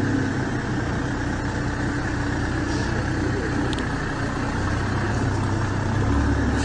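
A vehicle engine running steadily at a low rumble, with one brief sharp click a little under four seconds in.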